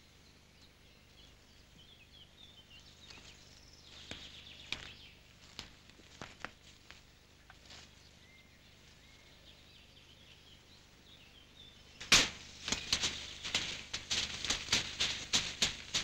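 Faint high bird chirps and a few scattered snaps to begin with. About twelve seconds in, a sudden loud run of irregular crackling and snapping starts and keeps going: dry leaves and twigs being trampled by someone moving hurriedly through forest undergrowth.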